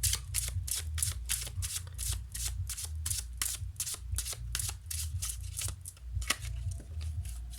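A tarot deck being shuffled by hand: a quick, even run of card slaps at about four to five a second, which thins out near the end.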